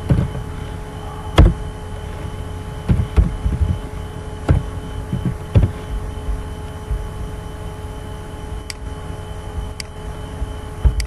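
Computer keyboard keystrokes: a few irregular thumps and clicks while code is typed, and two sharp clicks near the end. Under them runs a steady electrical hum with a constant whine.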